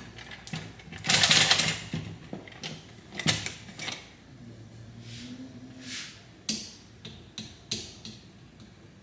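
Hands working at the stuck cap of a new olive oil bottle: a loud rasp about a second in, then a series of sharp, uneven plastic clicks and taps as the cap is twisted and pried.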